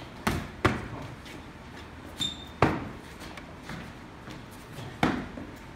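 Punches landing on boxing focus mitts: a quick pair of sharp smacks, then two single smacks about two seconds apart. A brief high squeak comes just before the third smack.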